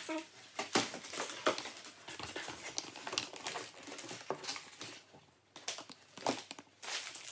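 Gift-wrapped presents rustling and knocking as they are packed into a cardboard box, the wrapping paper crinkling, in irregular bursts with a short lull about five seconds in.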